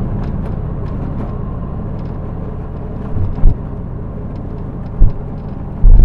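Road and engine noise inside a moving car: a steady low rumble, with a couple of dull low thumps about three and five seconds in.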